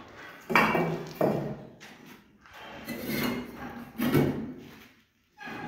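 Fired clay bricks stacked by hand without mortar, clunking against one another as they are set in place: several sharp knocks, the loudest about half a second in, about a second in and about four seconds in.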